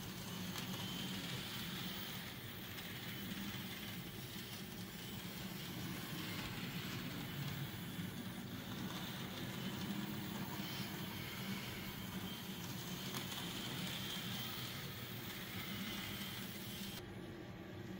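N scale model train running on its layout track: a steady whir from the small locomotive motor and the wheels on the rails.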